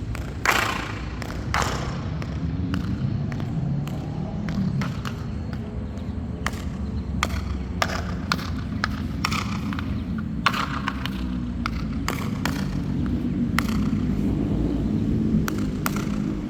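Metal high heels striking a hard floor: a series of sharp, irregularly spaced clicks, several ringing with an echo, over a steady low rumble.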